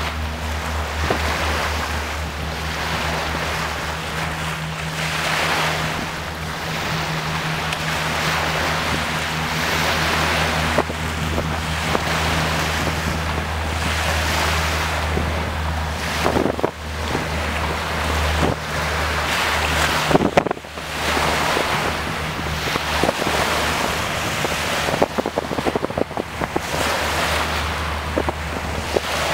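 Wind buffeting the microphone over choppy sea, in gusts with crackles, over a steady low engine drone.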